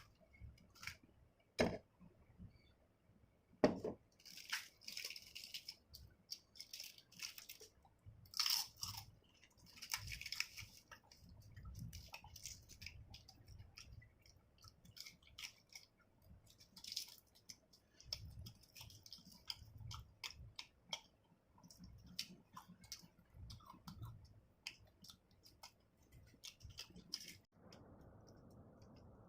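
Close-miked eating: a couple of sharp snaps, then crunching bites and steady chewing with small wet mouth clicks. The sound gives way to a faint steady hiss near the end.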